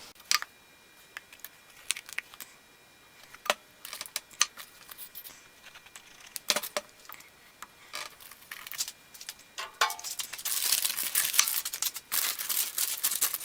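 Small wooden pieces being handled and fitted together during a glue-up: scattered light clicks and taps, then a denser scratchy rustle in the last few seconds.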